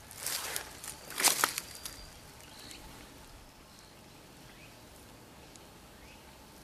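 Two footsteps crunching through dry leaf litter and twigs in the first two seconds, then a few faint, short high chirps over a quiet woodland background.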